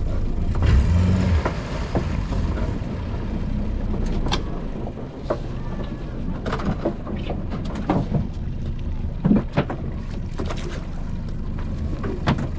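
Small fishing boat's engine running steadily, with wind on the microphone and scattered sharp knocks and clatters throughout.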